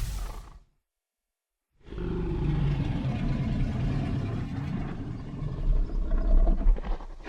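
Giganotosaurus creature sound effect: the end of one call fades out, and after a second of silence a deep, rumbling growl starts and runs on, swelling in loud pulses near the end. The deep growling of this creature was built from alligator bellows.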